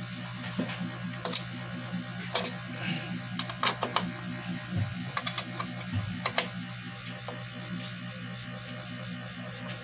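Scattered clicks and knocks from RCA cable plugs being pushed into and handled on a Yamaha F4-USB mixer's jacks, clustered in the first two-thirds, over a steady low electrical hum.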